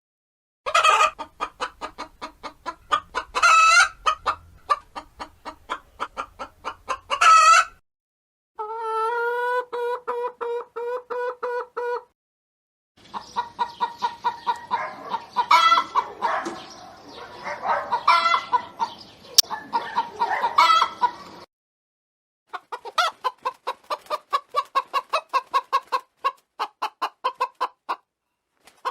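A chicken making an odd, rapid clucking call: quick pitched pulses, about four a second, repeated in several runs with short breaks between them. One run is a held, wavering call instead of separate clucks.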